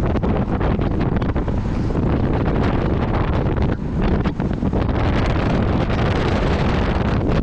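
Strong wind buffeting the microphone: a loud, steady rumble with constant flutter.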